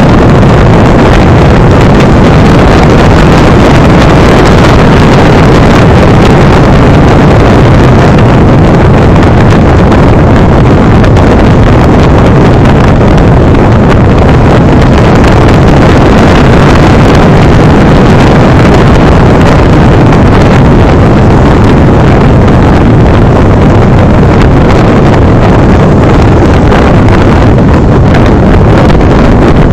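Loud, steady wind noise buffeting the microphone of a motorcycle dash camera while riding, with the motorcycle's engine running underneath.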